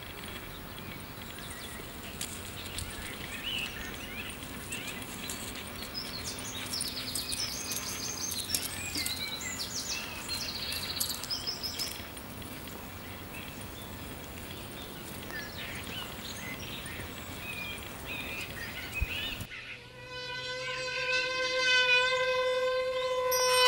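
Countryside ambience of birds chirping and insects over a steady hiss. Near the end it cuts to a single held musical tone that swells louder.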